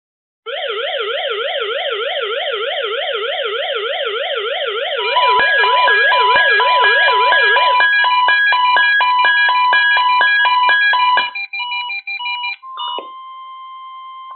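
Several weather radio receivers alarming at once for the weekly test. First a fast warbling siren-like tone sounds; from about five seconds in, overlapping rapid electronic beeps in several pitches join it, and most stop around eleven seconds. Near the end a single steady weather radio warning tone sounds.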